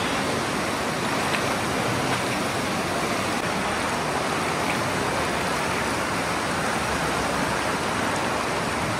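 Steady rushing noise of flowing water, an even hiss with no breaks.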